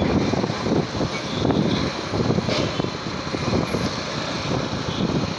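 Outdoor street noise: a dense, uneven rumble of nearby vehicles running.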